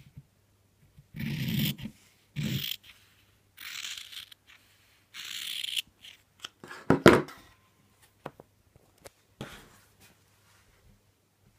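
Fabric scissors cutting through cloth in four separate strokes, each a short rasping snip, spaced one to one and a half seconds apart. About seven seconds in there is a louder knock from handling, followed by a few faint clicks.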